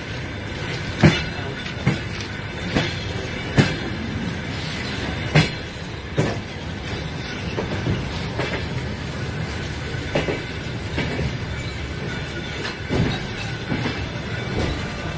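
Train rolling along the track with a steady rumble and sharp wheel clacks over the rail joints, about one a second at first and more scattered later, heard from aboard the moving train.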